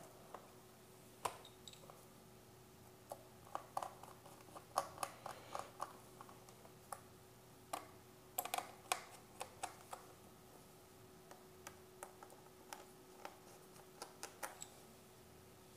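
Faint clicks and taps of a laptop's plastic bottom cover being pressed back into place and fastened with a screwdriver. The sounds are scattered single clicks, with a few quick runs of several clicks in a row.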